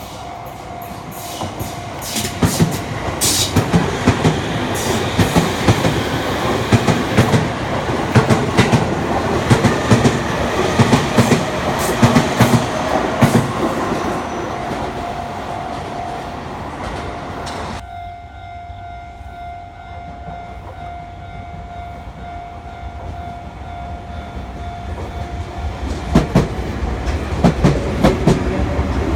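Sotetsu Line train passing over a level crossing, its wheels clattering rhythmically over the rail joints, while a steady warning tone from the crossing rings. The clatter fades about halfway through, and another train's wheels start clattering near the end.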